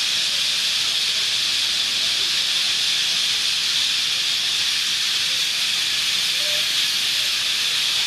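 Massed calls of a huge flock of parakeets, parrots and southern martins wheeling overhead, thousands of high-pitched calls merging into one steady, loud, hiss-like din.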